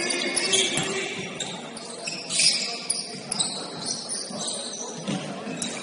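Basketball game court noise in a gym: a few brief high-pitched squeaks, such as shoes on the hardwood, over a general hubbub, with a louder noisy burst about two and a half seconds in.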